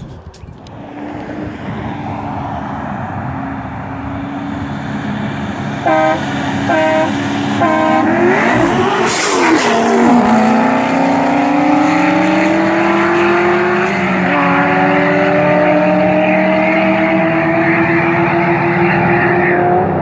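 A train horn gives three short blasts to start a street race. A nitrous 2008 Corvette Z06 and a supercharged 2014 Corvette Stingray launch with a burst of noise and run hard, their engine notes climbing, with a gear change partway through.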